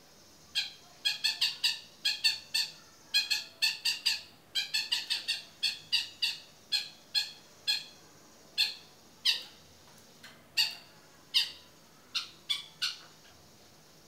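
Caged long-tailed shrike (cendet) giving a long series of short, harsh calls, several a second over the first half, then sparser, about one a second.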